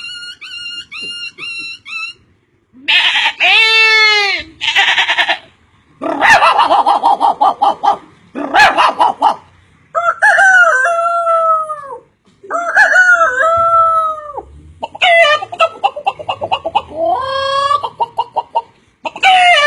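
A man imitating chickens with his voice. A run of short repeated chirps comes first, then several rooster crows alternate with rapid hen clucking and cackling.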